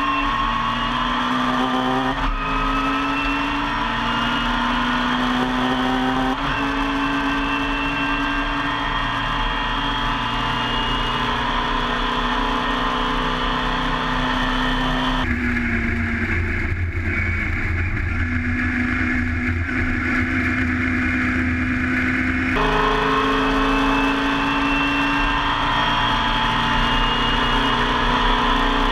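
Mini Miglia race car's tuned BMC A-series four-cylinder engine heard from inside the cockpit, running hard with the revs climbing and breaking at gear changes about 2 and 6 seconds in. From about 15 to 22 seconds it drops off throttle to a lower rumble, then pulls hard again.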